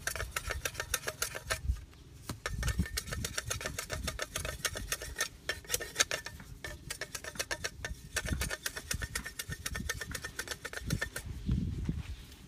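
A steel cleaver chopping and shaving a green bamboo pole in rapid strokes, several a second, broken by a few short pauses.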